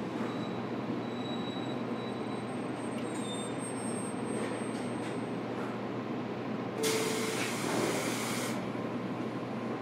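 Interior running sound of a JR Kyushu 813 series electric train car, a steady rumble with faint thin wheel squeal. About seven seconds in comes a short burst of air hissing, under two seconds long.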